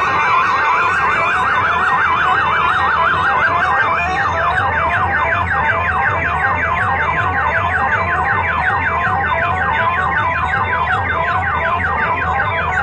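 Siren-style electronic warble played very loud through a DJ sound system's horn speakers: a fast up-and-down wail that changes about four seconds in to quick repeated rising sweeps, over a thudding bass pulse.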